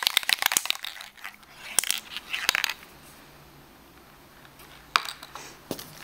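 Silver-ink graffiti squeeze marker being worked against a wall: quick runs of sharp clicks and scratches in the first three seconds, then two single clicks near the end.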